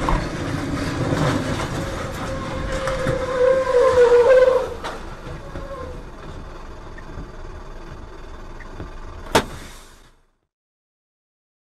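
Tractor-trailer crashing off the road into trees: loud crunching and scraping for about five seconds, with a wavering squeal toward the end of it. Then a quieter rumble, a sharp click near the end, and an abrupt cut to silence.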